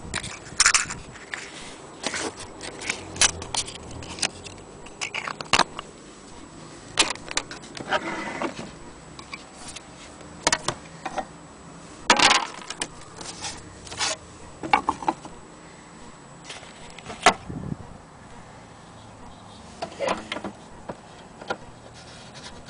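Handling noise from a wind-up gramophone and its parts: scattered, irregular clicks, clinks and light scrapes of hands moving small metal pieces. The sharpest knocks come about halfway through and again a few seconds later.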